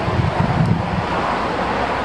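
Strong wind buffeting the microphone, a dense rushing noise with a heavier low rumble in the first second.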